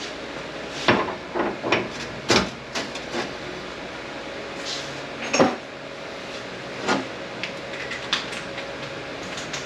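Scattered metal clanks and knocks of wrenches and sockets against an SM465 transmission as its bell housing is unbolted, about ten separate hits, the loudest a little past halfway. A faint steady hum runs underneath.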